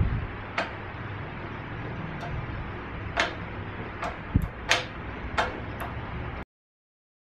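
Steady machine hum with a series of sharp metallic clicks and clinks and one low thump, then the sound cuts off suddenly about six seconds in.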